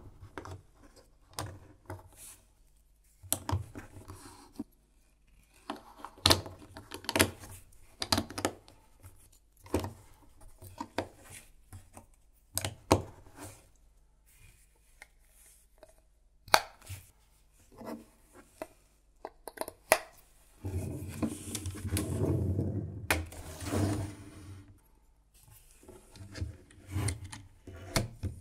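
Plastic LEGO bricks and Technic beams clicking and snapping together as they are fitted by hand, with plastic rubbing and scraping between the clicks. About 21 seconds in comes a denser spell of rubbing and rattling lasting some four seconds.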